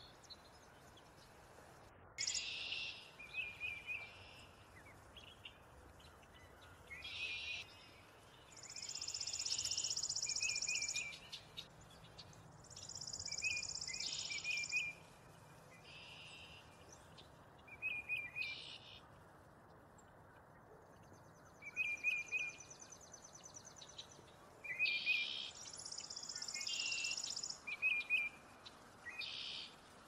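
Chipping sparrow singing its song, a rapid, dry, even trill of about two seconds, four times. Between the trills come shorter bursts of bird chirps.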